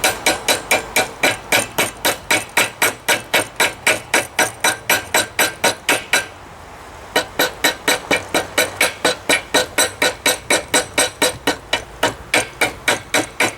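Hand hammer striking a hot railroad spike being forged: quick, even ringing blows about four a second, broken by a pause of about a second midway, then another steady run of blows.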